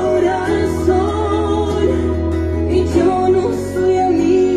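Music: a song with a singing voice over instrumental accompaniment and a steady bass.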